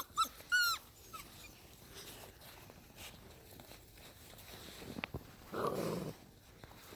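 Belgian Malinois puppies whimpering: three short, high whines in the first second, then a half-second rustling burst near the end.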